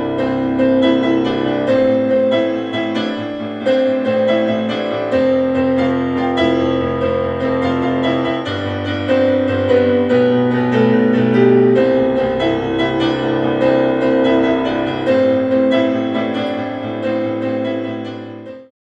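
Background piano music with held chords and a steady run of notes; it cuts off suddenly near the end.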